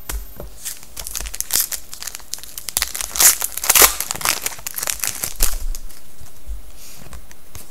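Foil trading-card pack wrapper being torn open and crumpled by hand: a run of sharp crinkling crackles, loudest about three to four seconds in, thinning out after about six seconds.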